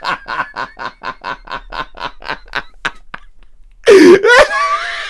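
A man laughing helplessly: a rapid run of breathy giggles, about six a second, that fades away over three seconds, then a loud burst of laughter near the end.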